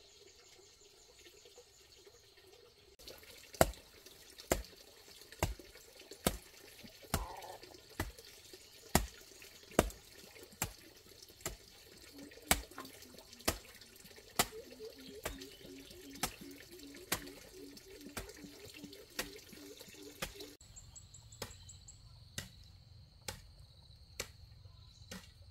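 Sharp taps repeating about once a second for most of the stretch, then fainter and less regular near the end.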